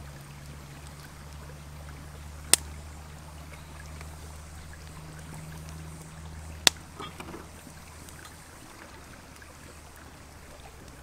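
Wood fire under roasting eggplants popping sharply twice, about four seconds apart, over a steady low hum and a soft hiss.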